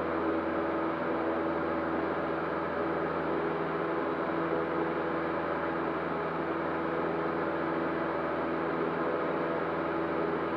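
Cessna 152's four-cylinder Lycoming piston engine and propeller running at a steady setting, heard from inside the cockpit as an even drone.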